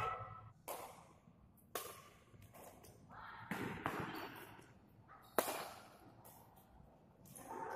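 Badminton rackets striking a shuttlecock in a doubles rally: a series of sharp cracks about a second apart, the loudest about five seconds in.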